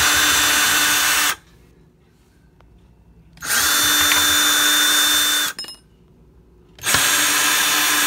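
Ryobi cordless drill-driver backing Phillips screws out of a kitchen cabinet hinge. The motor runs at a steady pitch in three spells of one to two seconds each, with short pauses between.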